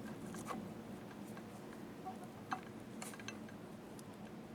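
A few faint, sharp clicks and small metallic taps from slit lamp parts being handled as the joystick is set on its control handle, over a low steady room hum.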